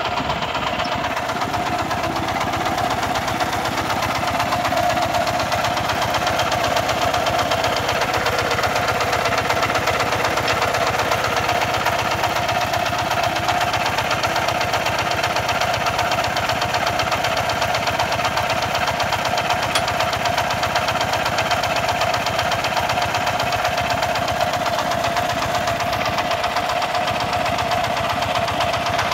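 Kubota RT140 walking tractor's single-cylinder diesel engine idling steadily, with a fast, even chugging beat.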